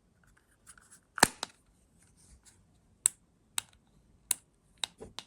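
A series of about seven sharp clicks and taps, unevenly spaced, from handling the wireless doorbell push button after its 23A 12V battery has been replaced. The loudest click comes about a second in.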